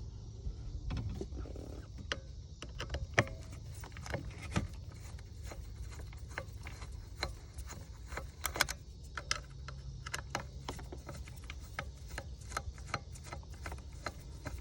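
Irregular small clicks and taps of a Mercury Commander 2000 remote control's parts being handled as its trim-switch wiring is fed through a small hole in the housing, over a steady low hum.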